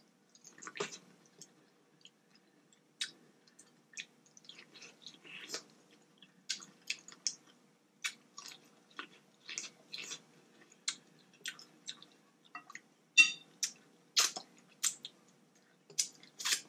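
Close-up eating sounds of a person chewing sauce-covered boiled vegetables: irregular wet smacks and clicks of the mouth, some louder near the end.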